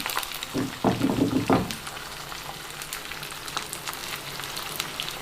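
Beaten eggs frying in butter in a hot frying pan: a steady sizzle with many small crackles.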